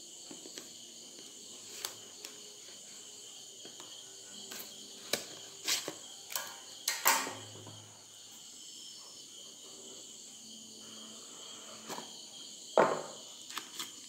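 Crickets chirring steadily in the background, while hands handle a cardboard phone box with scattered taps, rustles and knocks as its lid is lifted off. The loudest knock comes near the end.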